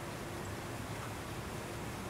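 Steady street background noise: an even low rumble and hiss with a faint constant hum and no distinct events.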